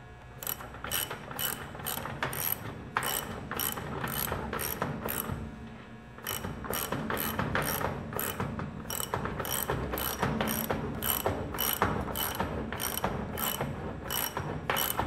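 Socket ratchet wrench clicking in quick, even strokes, about two a second, with a short pause about six seconds in, as it runs the adjustment nut down on a steel Leverlock clamp ring.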